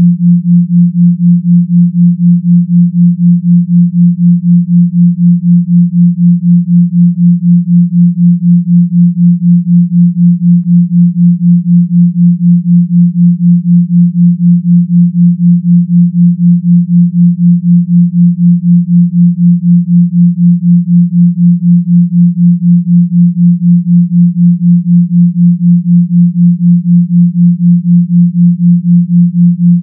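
Pure sine tone around 174 Hz, set as a binaural beat of 172 Hz in the left channel and 176 Hz in the right, giving an even 4 Hz (theta) pulse. It wobbles steadily about four times a second, with no other sound.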